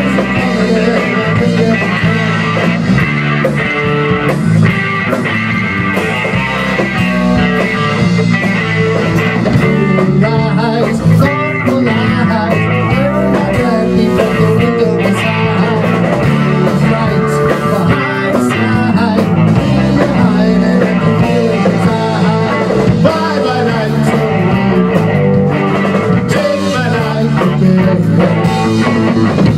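Rock band playing live: electric guitar over electric bass and a drum kit, in a long blues-rock stretch with no words sung.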